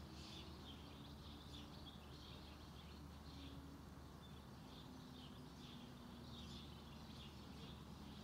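Faint, repeated chirping of small birds over a low, steady hum.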